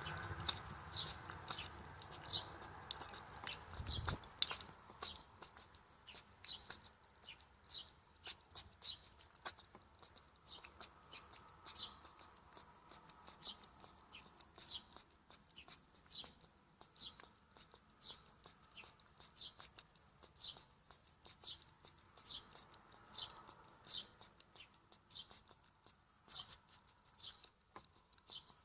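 A hedgehog coughing over and over after choking on something: short, high-pitched little coughs, about one or two a second. There is one low thump about four seconds in.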